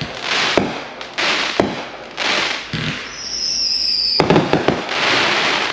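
Fireworks going off: sharp bangs about once a second, each followed by a crackling hiss, with a high, slightly falling whistle about three seconds in.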